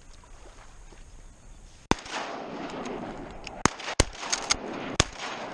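Shotgun shots: a sharp click about two seconds in, then rustling movement and a quick run of sharp cracks, the loudest two close together in the middle.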